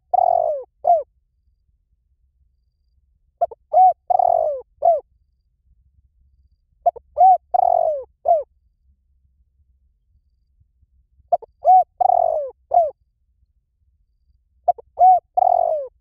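Spotted dove cooing: a short phrase of a few rising-and-falling coos ending in a longer note. The phrase repeats at a steady pace, about once every four seconds.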